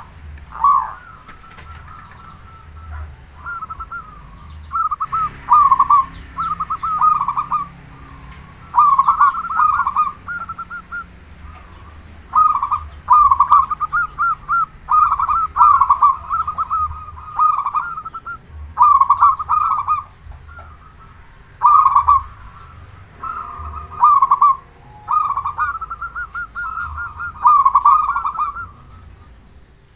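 Zebra dove (perkutut) cooing with a loud voice. The call is a repeated phrase of rapid, quavering coo notes about a second long, coming every one to three seconds.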